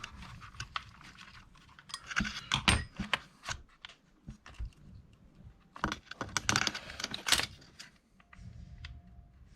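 Light clicking and rattling of small metal parts and tools in two bursts, about two seconds in and again about six seconds in, as the RC car's brushless motor is refitted and its gear mesh set by hand.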